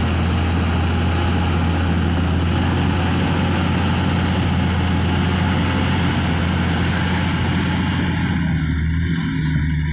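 Komatsu D155 bulldozer's diesel engine running steadily with a deep, even hum. About eight and a half seconds in, the higher-pitched part of the sound falls away while the low hum carries on.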